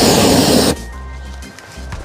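Aerosol spray can fired through a lighter flame as an improvised blow torch: a loud hissing whoosh that cuts off under a second in. Background music runs underneath.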